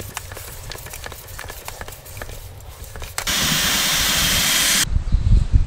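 Air hissing into a tyre for about a second and a half, starting and stopping abruptly, as the tyre is topped up. Faint clicks and handling noise come before it, and a few low thumps follow near the end.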